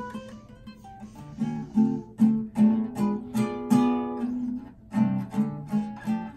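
Acoustic guitar strummed in a steady rhythm of chords, played harder in the middle.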